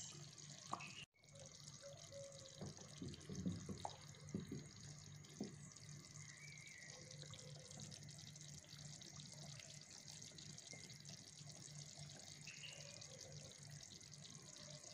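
Faint sound of thick mloukhiya stew simmering in a pot, with bubbles plopping at the surface. A few louder plops come between about three and five seconds in, over a steady low hum.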